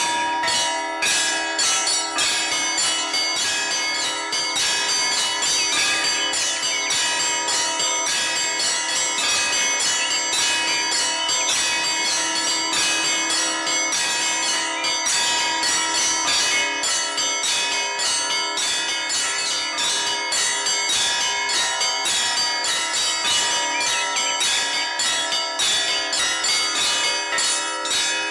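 Orthodox church bells ringing in a continuous peal: many bells struck in quick succession, several strokes a second, over the steady hum of their ringing tones.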